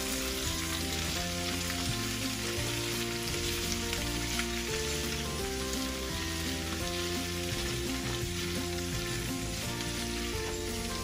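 Cubed root vegetables and smoked pork sizzling steadily in a hot stainless steel skillet as they are turned with tongs. Soft background music with held notes plays under the sizzle.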